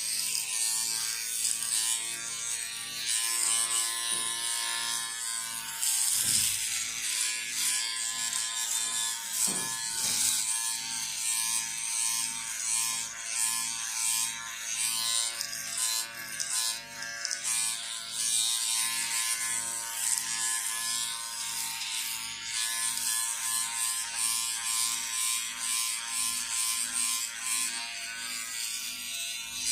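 Electric shaver running with a steady motor buzz, overlaid by a hissing cutting noise that swells and fades every couple of seconds as it works over hair.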